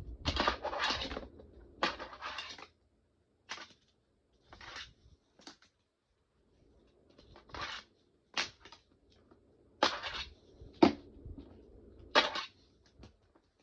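Wooden fingerboard clacking and scraping on plastic skatepark ramps, a rail and a box: about a dozen separate sharp clicks and short scrapes, with a pause of about a second in the middle.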